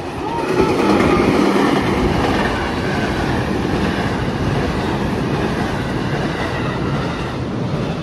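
A train passing close by, a steady rumble of wheels and carriages that swells about half a second in and holds.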